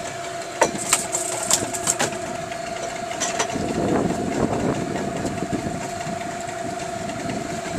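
A boat's motor running with a steady whine. Several sharp clicks and knocks come in the first half, and a louder rumbling joins from about halfway through.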